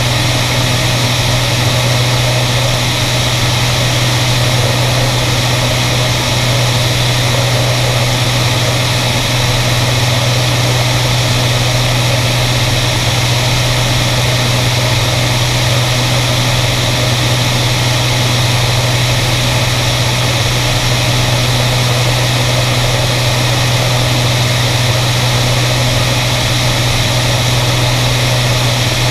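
Beriev Be-103 amphibian in cruise flight: its twin piston engines and propellers make a steady, unchanging drone. Heavy wind rush over a camera mounted outside the aircraft.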